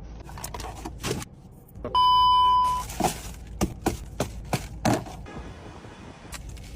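A loud, steady electronic beep lasting just under a second, about two seconds in. Before and after it come a series of sharp clicks or knocks.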